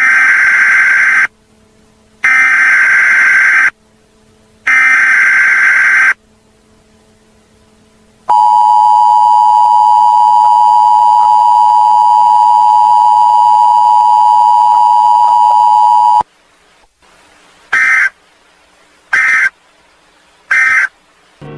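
Emergency Alert System tones, loud: three data bursts of warbling digital screech, then the steady two-tone attention signal (853 and 960 Hz) held for about eight seconds, then three short end-of-message data bursts.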